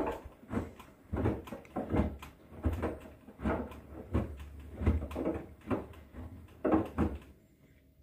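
Bosch front-loading washing machine tumbling a wet white rug: the heavy load thuds and water sloshes in the turning drum about twice a second. The tumbling stops about seven seconds in as the drum pauses, leaving a faint steady hum.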